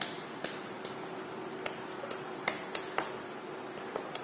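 Sharp, irregular clicks and taps, about nine in four seconds, as a ball of soft dough is pressed and worked by hand on a stone countertop, over a faint steady hum.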